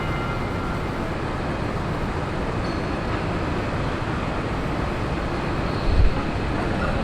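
Steady rumbling vehicle noise, with a short low thump about six seconds in.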